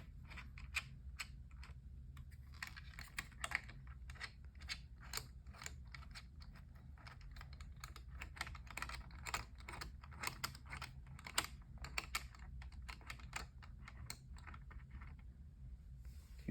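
Dense run of small irregular clicks and ticks as screws are threaded into a CPU cooler's metal mounting brackets, thinning out near the end.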